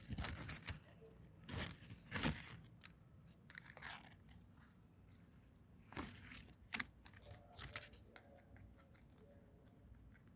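Irregular crunches and snaps of dry leaves and twigs, coming in a few clusters with quieter stretches between.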